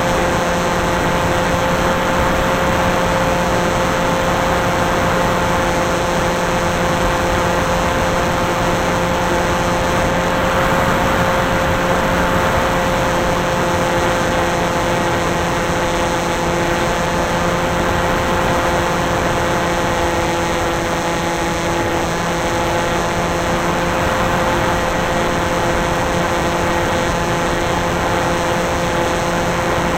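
Electric motor and propeller whine of an FPV model aircraft, heard close up through its onboard camera, holding a steady pitch over a constant rush of air noise as it cruises.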